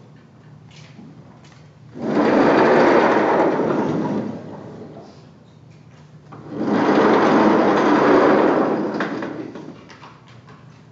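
Sliding chalkboard panels in a lecture hall being pushed along their tracks: two long, even sliding runs, each lasting about two to three seconds, the first about two seconds in and the second past the middle.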